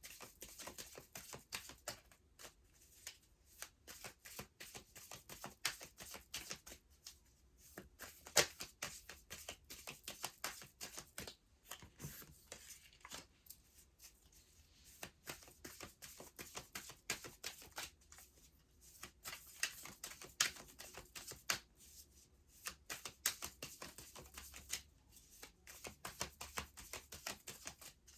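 A deck of tarot cards being shuffled by hand: a long run of quick, irregular card flicks and slaps.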